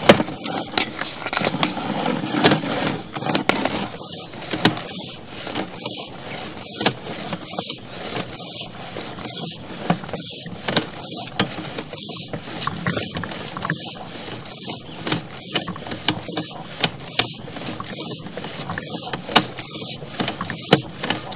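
Sewer inspection camera's push cable and reel being worked by hand through the line: a regular scrape-and-click about every three-quarters of a second over a steady hiss.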